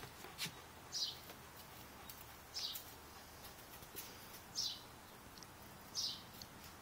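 A small bird calling faintly: a short, high note that drops in pitch, repeated four times about every one and a half to two seconds.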